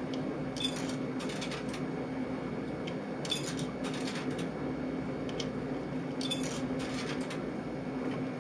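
Coins being fed one at a time into a snack vending machine, making about half a dozen short metallic clinks spaced a second or more apart over a steady low hum.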